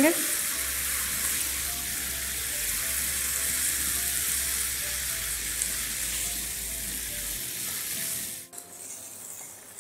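Egg masala sizzling in a non-stick frying pan as chopped boiled eggs are stirred through it with a silicone spatula. The sizzle cuts off sharply near the end.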